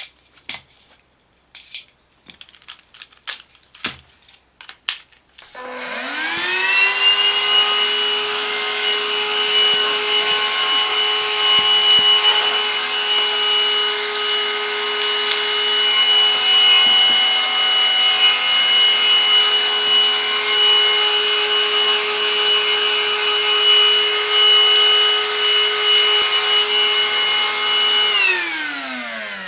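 A few clicks and knocks, then the Silvercrest SHAZ 22.2 F7 cordless cyclone vacuum cleaner's motor starts about five seconds in. It rises quickly to a steady high whine with a rush of air, runs for over twenty seconds, and is switched off near the end, winding down in pitch.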